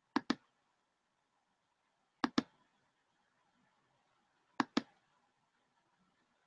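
Three double-clicks of a computer mouse, about two seconds apart, with quiet room tone between them.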